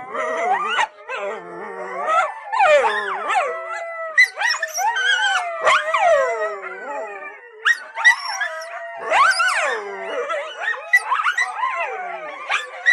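A group of coyotes howling and yipping together: several wavering calls overlapping at once, rising and falling in pitch, broken by short sharp yips and barks.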